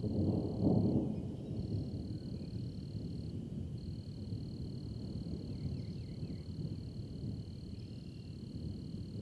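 Thunder from a storm rumbling low, swelling about a second in and then slowly easing off. Over it runs a steady high-pitched insect trill that breaks off briefly twice.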